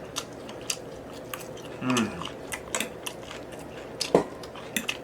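Close-miked chewing and mouth sounds from someone eating: scattered wet clicks and smacks, with a brief hum about two seconds in.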